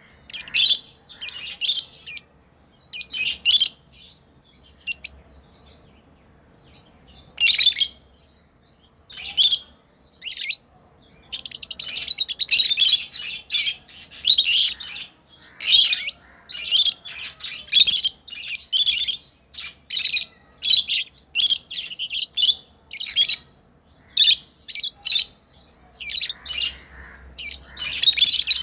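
Pet lovebirds chirping: short, high-pitched chirps in quick bursts. After the opening calls there is a pause of a few seconds, then the chattering becomes almost continuous through the latter half.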